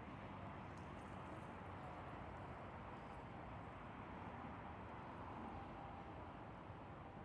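Faint steady outdoor background noise, an even hiss with a low hum of distant traffic or machinery and a few faint ticks.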